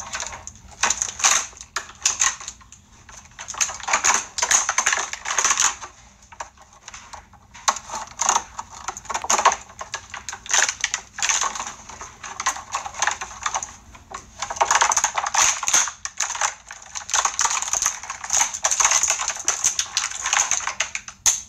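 Clear plastic toy packaging crinkling and crackling as it is handled and pulled open by hand, in long bursts with short pauses between.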